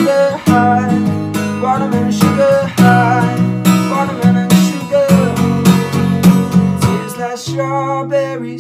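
Acoustic guitar strummed in a steady rhythm, with a chord left ringing and fading near the end.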